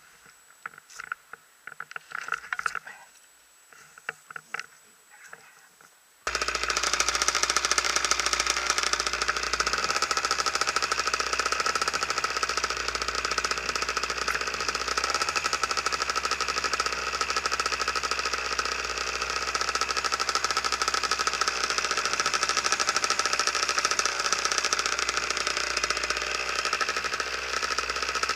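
Faint clicks and rustles of gear being handled, then about six seconds in the paramotor's two-stroke engine comes in abruptly and runs steadily with a buzzing drone while the pilot stands on the ground wearing it.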